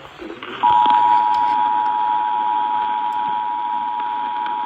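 Emergency Alert System attention signal: a steady two-tone alarm (853 and 960 Hz) that starts about half a second in, marking an EAS activation for a severe thunderstorm warning. It is received over radio, with a hiss behind it.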